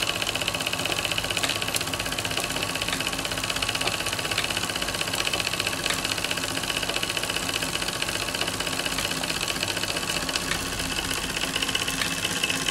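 MF Twin toy steam engine running steadily on live steam, a fast, even chuffing and clicking from its two cylinders. It drives a Jensen 100 toy workshop through spring belts.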